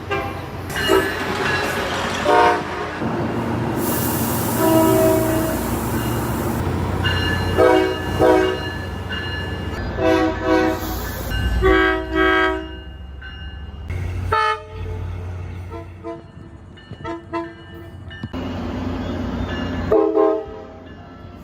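Tri-Rail commuter train horns sounding a series of multi-note blasts, some short and some held, over the steady low rumble of the trains, cut together from several recordings.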